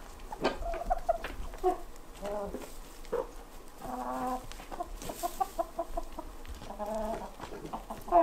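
A flock of Bresse chickens clucking while they feed, with short calls coming every second or so.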